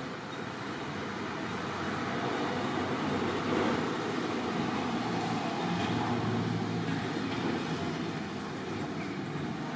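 A motor vehicle passing: engine and road noise that swells to a peak in the middle and then eases off.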